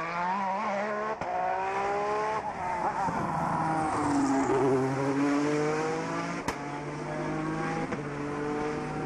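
Peugeot 208 T16 Pikes Peak race car, a twin-turbo V6, accelerating hard uphill. Its engine note climbs and breaks off briefly at each quick upshift. The pitch drops as it passes close about four seconds in, then keeps climbing through the gears as it pulls away, with a single sharp crack about two seconds after the pass.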